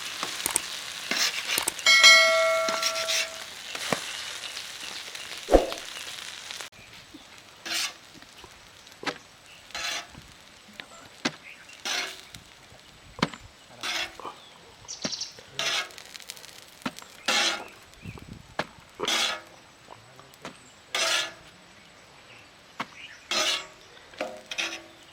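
Omelette frying on a hot pan: a steady sizzle with metal clanks and one ringing metallic clang about two seconds in. The sizzle cuts off about seven seconds in, and a string of short separate sounds follows, roughly one a second.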